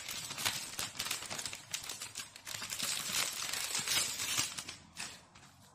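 Packaging being unwrapped by hand from a craft cutting die: crinkling and rustling with many irregular sharp clicks, dying away about five seconds in.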